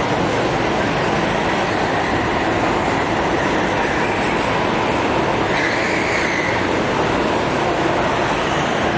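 Go-kart engines running at race speed on an indoor track, blending into a steady, loud drone that echoes in the hall. A higher whine rises briefly about six seconds in.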